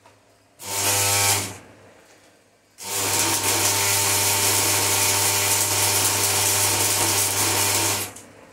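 Electric stick-electrode arc welding on thin steel angle: a short arc of about a second, then, after a brief pause, a steady crackling hiss of about five seconds, with a low hum from the welder under both.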